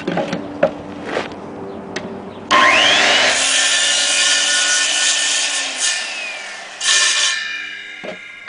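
Handheld circular saw (Skil saw) starting up with a rising whine about two and a half seconds in, cutting notches into wooden ceiling slats for about five seconds, then coasting down as its hum fades. A few knocks of handling come before it starts.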